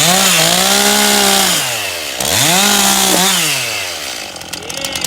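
Two-stroke chainsaw revved to full throttle twice, the engine note climbing, holding about a second and a half and falling back each time, then settling toward a rough idle near the end.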